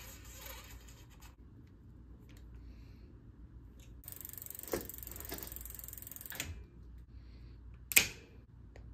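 Steel bicycle brake cable being pulled and worked at a rear cantilever brake, rustling and scraping in two stretches with a few light clicks. One sharp metallic click about eight seconds in is the loudest sound, from the hand tools at the cable anchor.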